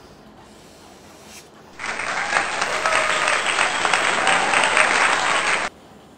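Applause sound effect: a crowd clapping for about four seconds, starting about two seconds in and cutting off abruptly.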